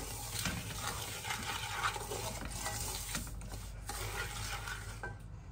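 Slotted wooden spatula stirring and scraping roasted semolina around a large metal pot, in a run of repeated scratchy strokes.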